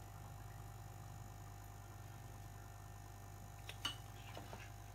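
Steady low hum, with a short cluster of light clicks near the end and a few fainter ticks just after.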